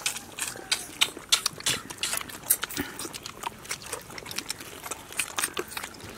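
People eating fried chicken legs by hand: irregular wet smacking, chewing and tearing clicks from mouths and fingers, several a second.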